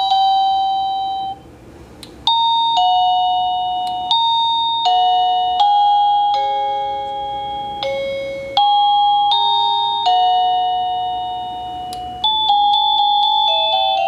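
PawTechie wireless pet doorbell receiver playing a run of its selectable electronic chime tunes one after another. Each tune is a short melody of clear, bell-like notes, and a new tune starts every few seconds.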